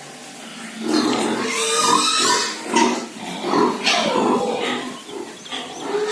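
Pigs calling in a rapid string of grunts and squeals, starting about a second in.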